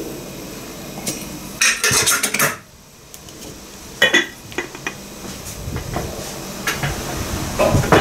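Ceramic jug and kettle being handled after filling: a quick cluster of clinks and knocks about one and a half to two and a half seconds in, a sharp knock around four seconds, then a few lighter clicks.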